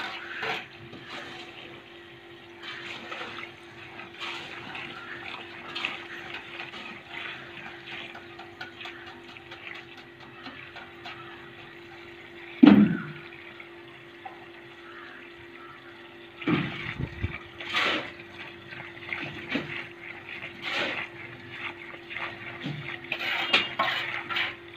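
Water running steadily through a hose pipe into a tank that is being filled, with a steady hum beneath it. Occasional short knocks, and one loud thump about halfway through.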